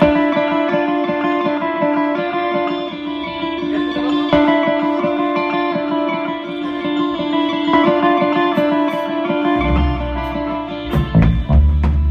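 Electric guitar played through an amplifier during a band sound check: rapid, evenly repeated picking over held notes. Deep bass notes join near the end.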